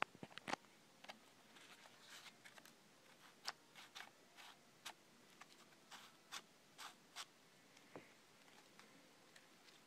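Faint irregular clicks and taps with soft scuffing between them as a homemade cardboard, PVC and wood replica of a Beretta M12 submachine gun is handled. The clicks come in a quick cluster at the start, then singly every half second to a second, stopping about two seconds before the end.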